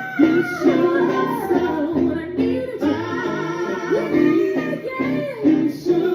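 A live song: a singer's voice holding and bending long notes over guitar accompaniment.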